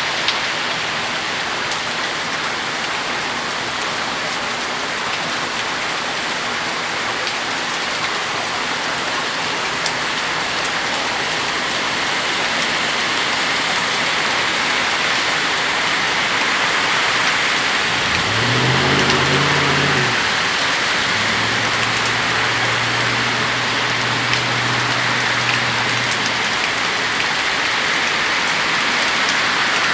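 Heavy rain pouring down steadily. About two-thirds of the way through, a low engine hum rises out of it for several seconds, holding one steady pitch before it fades.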